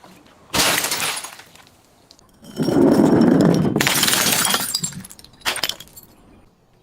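Glass bottle breaking and being crushed: a sudden smash about half a second in, a longer stretch of crunching, shattering glass from about two and a half to five seconds, and a brief last crack near the end.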